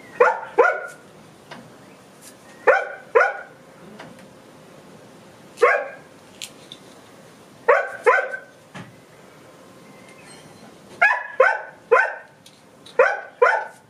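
A dog barking in short, sharp barks, mostly in pairs a few seconds apart, then a quicker run of barks near the end: the dog wants to be let in.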